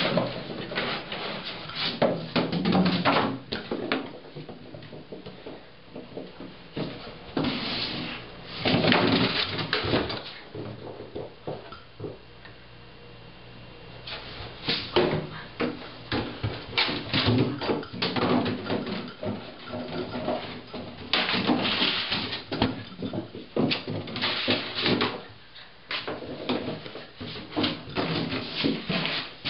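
Puggle puppy playing with white plastic on a hardwood floor: a plastic bag and container rustling, scraping and knocking against the boards in irregular bursts, with quieter gaps between.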